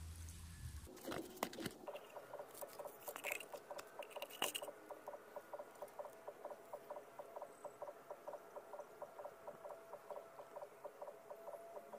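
A fast, even run of short chirps, about five a second, from a calling animal. A few sharp knocks come in the first few seconds.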